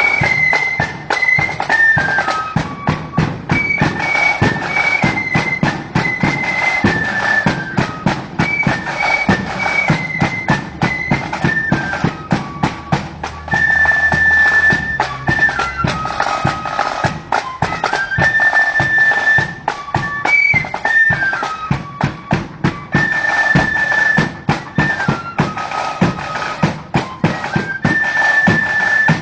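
Marching flute band playing a tune: a high fife-like flute melody over rapid, steady snare drumming and bass drum beats.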